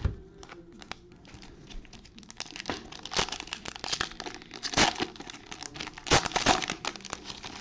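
Foil wrapper of a Panini Mosaic football bonus pack crinkling and tearing as gloved hands handle and rip it open: a run of irregular crackles, loudest about three, five and six seconds in.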